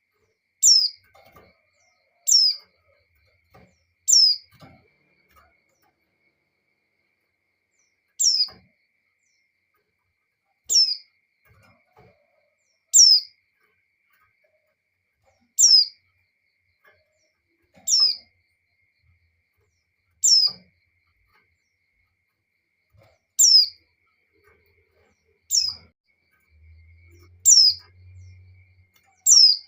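Female white-eye (pleci) in breeding condition giving her call to males: a single short, high note that sweeps downward, repeated about a dozen times at uneven gaps of two to four seconds.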